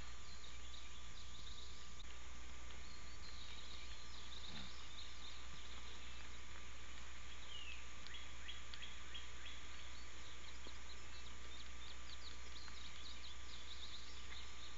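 Outdoor ambience through a deer-cam microphone: clusters of short high chirps and ticks from small wildlife over a steady electrical hum.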